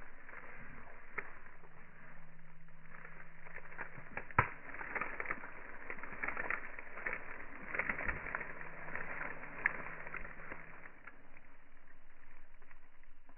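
Dry flower strands and fronds of a male palm rustling and crackling as the flower cluster is disturbed and sheds pollen, with scattered sharp snaps, the loudest about four seconds in.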